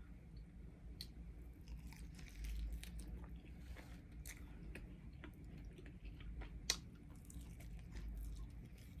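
Close-miked, quiet chewing and biting of a mango habanero chicken wing, with soft wet mouth sounds and small scattered clicks. There is one sharper click about two-thirds of the way through.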